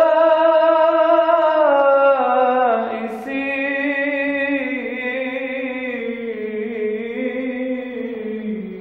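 A man singing solo without accompaniment, drawing out long held notes that slide slowly down and up in pitch. He takes a short breath about three seconds in, and the voice grows softer toward the end.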